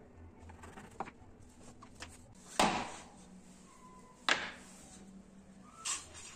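Wooden blocks and a quick-release bar clamp being handled and set down on a plywood workbench: a few small clicks, then three sharp knocks about a second and a half apart.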